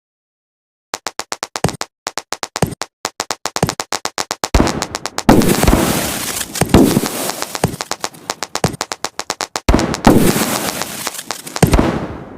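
"Garden of Eden" consumer fireworks battery firing. About a second in, a fast string of sharp cracks starts, several a second. From about four and a half seconds in come heavier bangs with crackling trails after them, in repeated volleys.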